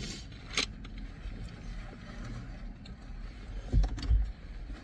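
Steady low hum of a car cabin, with two sharp clicks near the start and two dull thumps near the end.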